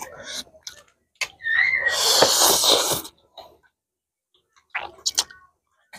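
A loud slurp of spicy noodles lasting about a second and a half, with softer chewing and a few sharp clicks near the end.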